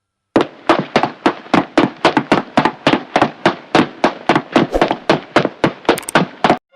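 A rapid, slightly uneven series of sharp taps or knocks, about five a second, starting about a third of a second in.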